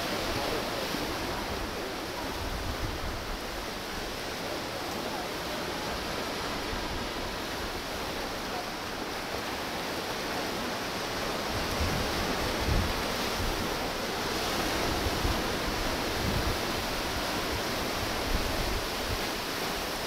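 Steady wash of sea surf breaking on a rocky shore, mixed with wind, with a few low gusts buffeting the microphone in the second half.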